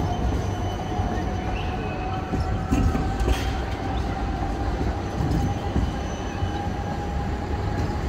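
Low-floor electric trams passing close on street track: a steady rumble of wheels on the rails under a steady high whine. A few clicks and knocks come around three seconds in.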